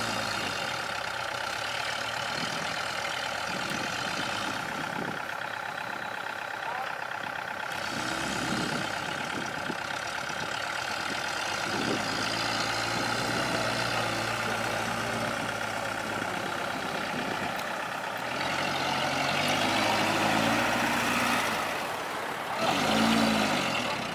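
Heavy diesel engines of earth-moving machinery running, with the engine pitch rising and falling several times as the machines work, over a steady higher whine.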